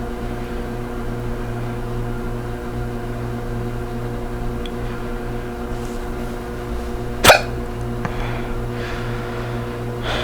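A woman hiccups once, sharp and loud, about seven seconds in, over a steady low hum. These are natural hiccups brought on by swallowing a drink wrong.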